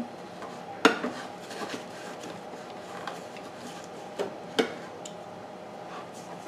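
Scattered knocks and clacks of hard objects being handled, the loudest about a second in and a few more later, over a steady faint hum.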